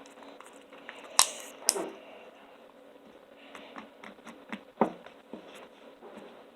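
Homemade slime being handled: two sharp pops or clicks about a second in, another near five seconds, and light crackling and ticking in between.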